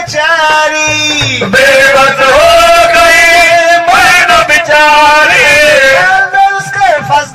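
A male voice singing a Sufi devotional song (kalam) in long, wavering held notes that slide between pitches, with music behind.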